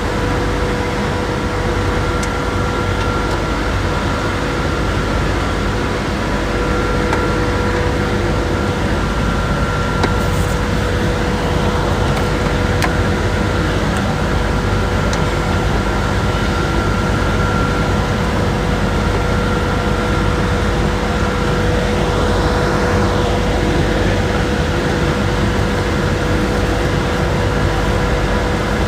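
Steady machinery drone with a constant whine running through it, unchanging throughout.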